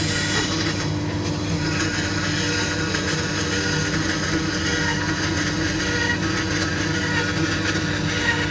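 An electric power tool running steadily: a motor hum with a constant rushing noise above it.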